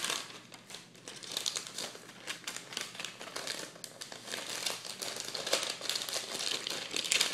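Plastic flameless heater sleeve and sealed meal pouch of a ready-to-eat ration crinkling and crackling as they are handled and the pouch is worked into the sleeve, with a louder crackle at the start.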